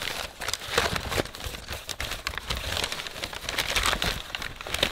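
Crumpled brown kraft packing paper rustling and crinkling as a hand rummages through it inside a cardboard box.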